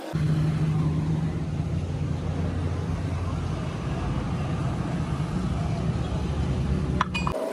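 Tractor engine running with a steady low rumble. It cuts in abruptly at the start and cuts off abruptly near the end.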